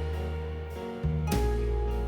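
Background music: instrumental with a bass line and a new chord or note struck about every second.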